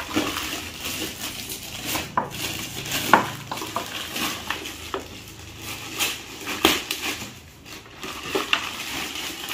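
Clear plastic wrapping crinkling and rustling as it is pulled off a mixer grinder's motor unit, with scattered sharp crackles and the odd knock of the unit being handled.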